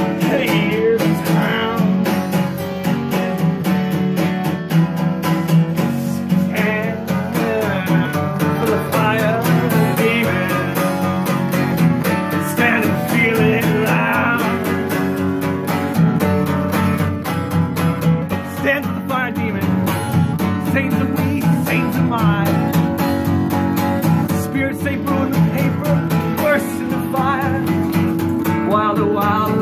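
Acoustic guitar, capoed, strummed steadily in a live jam, with an electric guitar playing along.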